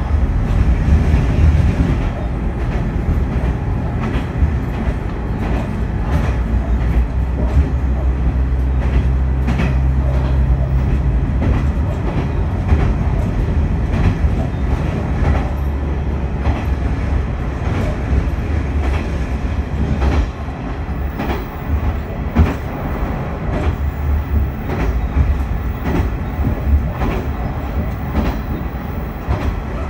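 Noto Railway diesel railcar running along the line, heard from inside the car at the rear: a steady low running rumble with the wheels clicking over rail joints. A steadier low engine hum comes in about eight seconds in and fades again a few seconds later.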